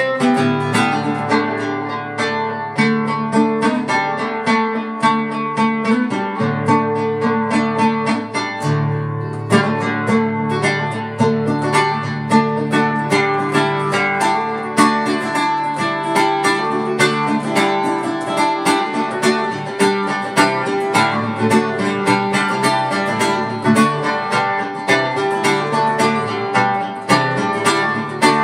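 Acoustic guitar playing an instrumental piece: a fast, even stream of picked notes over held bass notes.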